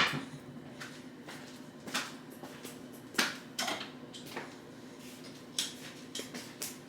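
Scattered sharp clicks and knocks of metal kitchen utensils being handled, a loud one at the very start: someone rummaging for and working a hand can opener on a can.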